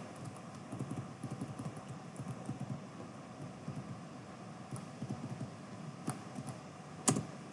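Typing on a computer keyboard: irregular key taps and clicks, with one louder click about seven seconds in.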